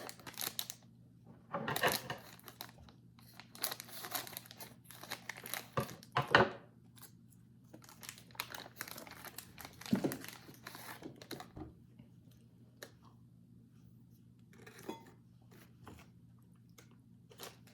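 Plastic wrapper of a packaged snack cake crinkling and tearing open in irregular bursts, the loudest about 2, 6 and 10 seconds in.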